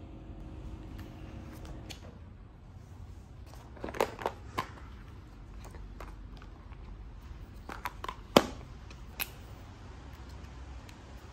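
Clear plastic pencil case and pens being handled: short sharp plastic clicks and clatters, three close together about four seconds in and three more around eight to nine seconds, over a faint low steady hum.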